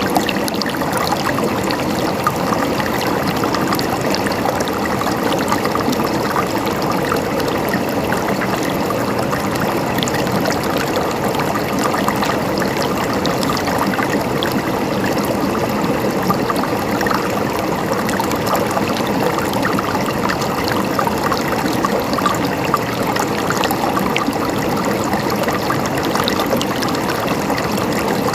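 Running water gurgling and trickling steadily, with many small splashes.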